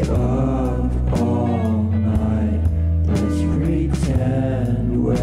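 Background music: a song with a singing voice over a steady beat.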